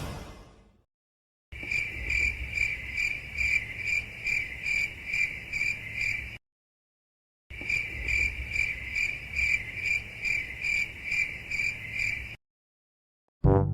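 Crickets chirping in an even pulse of about two chirps a second, heard twice as the same five-second stretch, each time starting and cutting off abruptly with dead silence between, like an inserted sound effect.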